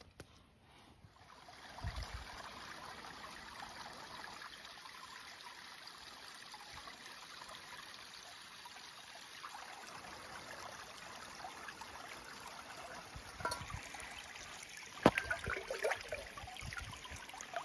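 Shallow stream running over rocks, a steady rush of water. Near the end a stainless camp pot is dipped and rinsed in the current, with splashing and gurgling as water fills and sloshes out of it.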